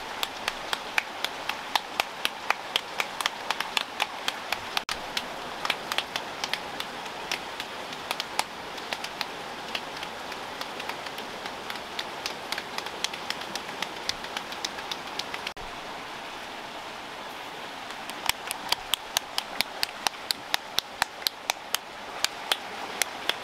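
Hands patting corn masa into tortillas: quick, regular slaps of palm on dough, about four a second, thinning out for a couple of seconds past the middle. Behind them is a steady rush of running spring water.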